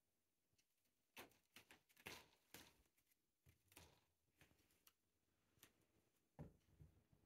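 Cat's claws scratching a sisal-rope scratching post: a series of short scratching strokes starting about a second in.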